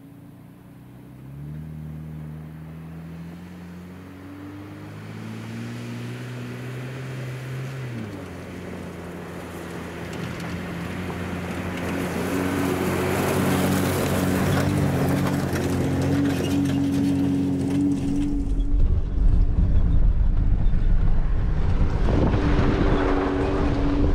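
Jeep pickup's engine running as it drives along a gravel dirt track, its pitch stepping up and falling back, then growing steadily louder as it comes closer. A heavy low rumble joins in for the last few seconds.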